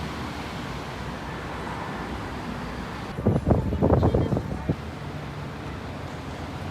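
Busy city street traffic noise, a steady hum. About three seconds in comes a loud low rumbling burst lasting about a second and a half.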